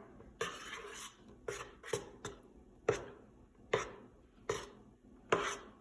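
A utensil scraping and knocking against a bowl in a series of short strokes at an uneven pace, stirring glue, baking soda and shaving cream together into a slime base.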